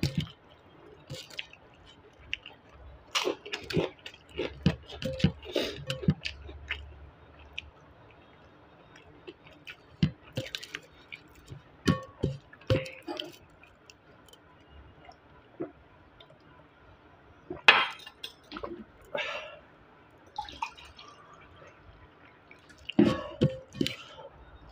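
Close-up eating sounds of a person eating dal and rice by hand: wet chewing and mouth noises, fingers squishing and mixing rice on a stainless steel plate, and occasional clinks. The sounds come in scattered clusters, with a sharp knock about two-thirds of the way through as the loudest.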